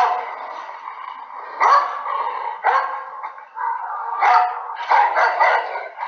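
Dog barking: a series of sharp barks at irregular intervals, some in quick runs of two or three.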